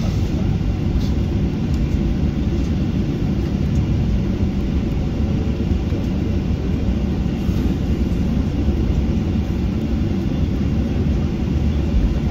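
Inside the cabin of a Boeing 737-800 rolling along the runway after touchdown: a steady low rumble of the CFM56 jet engines and the wheels on the runway.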